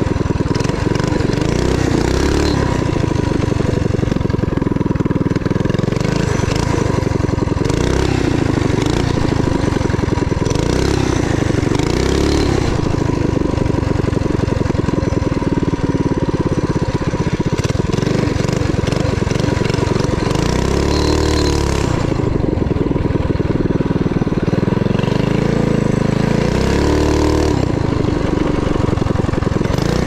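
Harbor Freight Predator single-cylinder engine on a torque-converter mini bike running hard under way, its pitch rising and falling several times as the throttle is opened and eased off.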